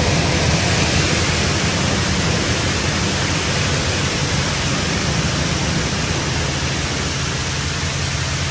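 Wash World Razor automatic car wash running: a loud, steady hissing rush of spray with no break in it.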